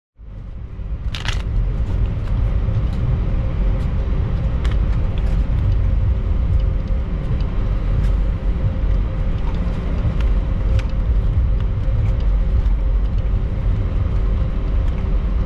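Airbus A320 cabin noise while the jet is on the ground: a steady low rumble with an even hum and a faint pulsing tone above it, and scattered light clicks, the clearest about a second in.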